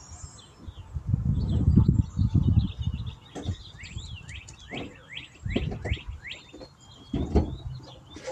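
A songbird singing a quick run of about eight sliding notes in the middle, with other scattered chirps, over loud low rumbling bumps that are strongest about a second in.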